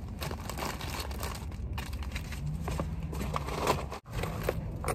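Hands handling cash and loose change, giving soft rustling and small scattered clicks, over a low steady hum.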